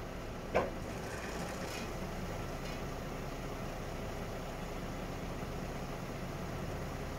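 Volvo FL 290 truck's diesel engine idling steadily as its loader crane's boom telescopes out, with one sharp knock about half a second in.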